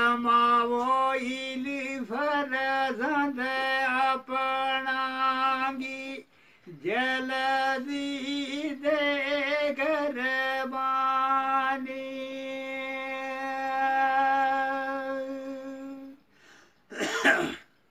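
A man singing unaccompanied in a high, strong voice, in two long phrases with quick ornamented turns; the second phrase ends in a long, steady held note. A short vocal sound follows near the end.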